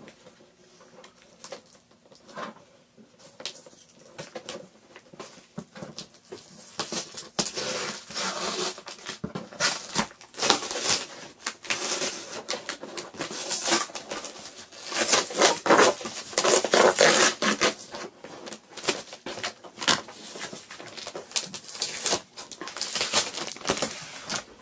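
Packaging being handled and opened: irregular rustling, crinkling and small clicks, faint at first and then much louder and busier from about seven seconds in.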